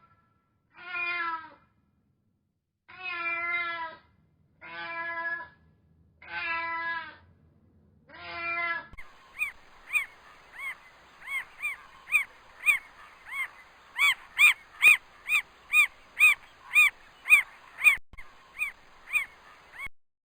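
A cat meowing: five drawn-out meows with wavering pitch, a second or two apart. About nine seconds in, the sound changes to a quick series of short, high calls, about two a second, that carries on until just before the end.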